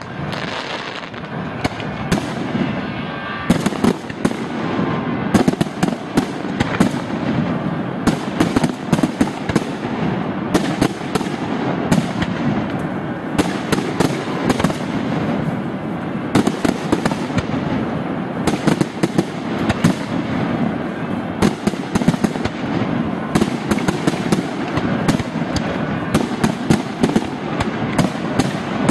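Aerial firework shells bursting in a dense, continuous barrage: many sharp bangs a second over an unbroken crackle.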